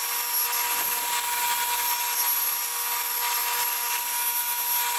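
Table saw with a dado blade running steadily: a constant whine over an even hiss.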